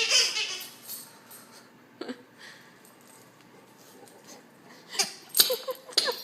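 A dog's rubber squeaky toy squeaking as the dog chews and squeezes it. There is a long wheezy squeal at the start, a short squeak about two seconds in, and a quick run of squeaks near the end.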